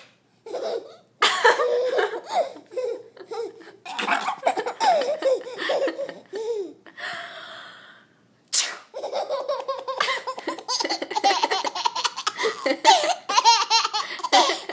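A baby laughing hard in bursts, set off by sneezes. A sharp sneeze comes a little past halfway and is followed by a long run of quick, pulsing laughs.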